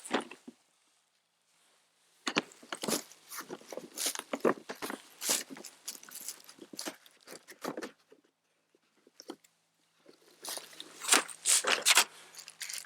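Plastic packaging crinkling and clicking as a mini chainsaw kit's carrying case is opened and unpacked, in two spells of dense crackle with a pause of about two seconds between.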